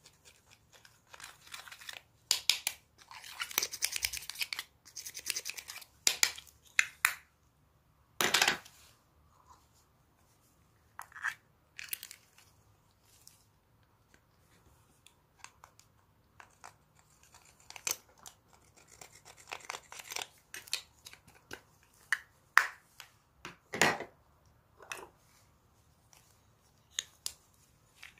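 Slime mixed with eyeshadow being worked by hand: irregular sticky crackles, pops and squelches. There are busy stretches near the start and again after the middle, with quieter pauses between.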